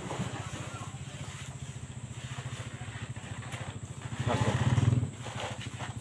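Pickup truck engine idling with a steady, fast pulsing throb, swelling louder for about a second near the end.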